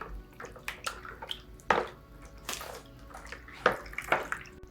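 Ferric chloride etching solution sloshing and splashing in a container as a copper PCB board is shaken in it to etch away the bare copper. The sloshes come irregularly, about one a second.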